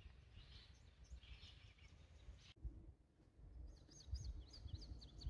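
Faint songbird chirping over a low rumble. After a break about two and a half seconds in, the chirps come back quicker and higher-pitched.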